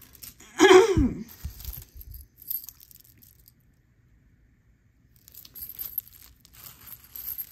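Jewelry being handled on bubble wrap: plastic crinkling with light clicks and clinks of beads and a gold chain-link bracelet. About a second in there is a brief pitched vocal-like sound with a couple of thumps, the loudest moment.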